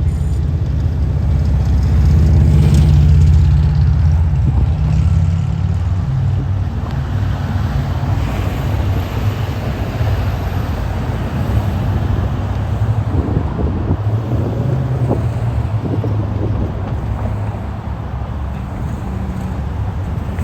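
City road traffic: motor vehicles passing with a low engine rumble that is loudest a couple of seconds in and then eases off.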